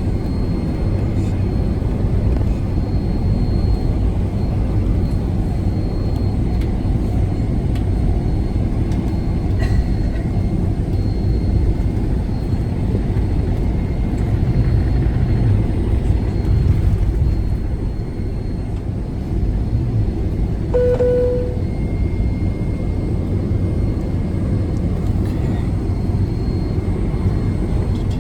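Steady low rumble of a Boeing 757-200's engines heard inside the passenger cabin, with a faint steady whine above it. About three-quarters of the way through, a single short chime sounds once.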